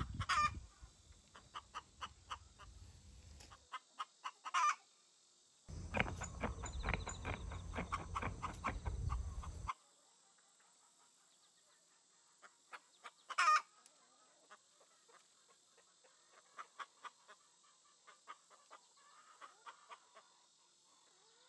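Chickens clucking in runs of short repeated calls, with a few louder calls scattered through. A low rumble comes and goes during the first half.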